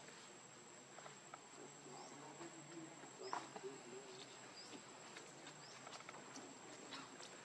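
Faint outdoor insect drone: a steady high thin tone with short rising chirps about once a second, and a few soft clicks, the sharpest a little over three seconds in.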